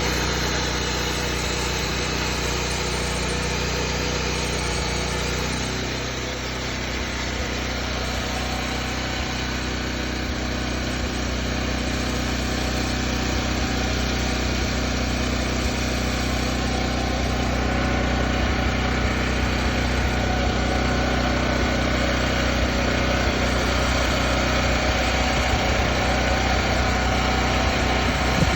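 Small engine of an asphalt core-cutting drill running steadily while it cuts a core from the road surface, easing off slightly about six seconds in.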